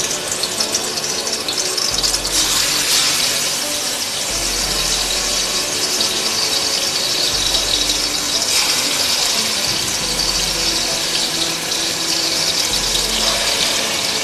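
Marinated chicken wings sizzling in hot oil in an aluminium pan, a steady loud hiss of frying. It grows louder about two seconds in and again after about eight seconds as more wings are added to the oil.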